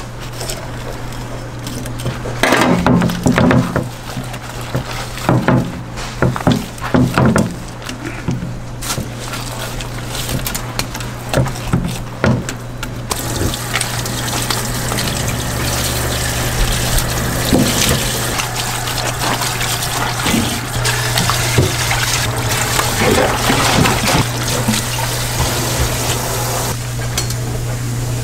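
Food-stall kitchen work: scattered knocks and clatter of utensils through the first half, then a steady hiss from about halfway, all over a low steady hum.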